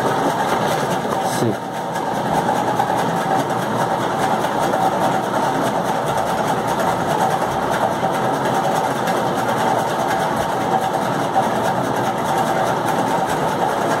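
A machine running with a steady, even whirring hum that does not change.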